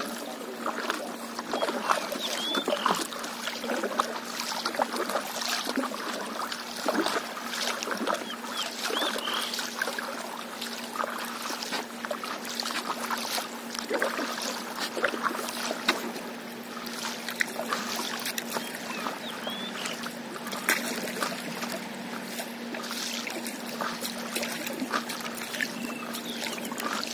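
Small waves lapping and trickling against a stand-up paddleboard, with a few short bird chirps and a steady low hum.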